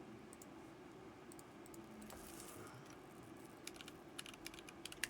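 Faint typing on a computer keyboard: scattered key clicks, then a quick run of clicks in the last second and a half, over a low steady hum.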